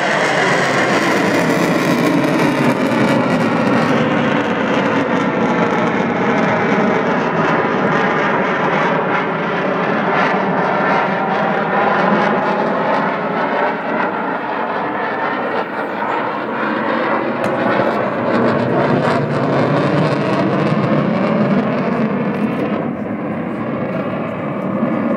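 Single-engine F-16 fighter jet flying overhead, its turbofan a loud continuous roar. The tone sweeps slowly up and down as the jet passes.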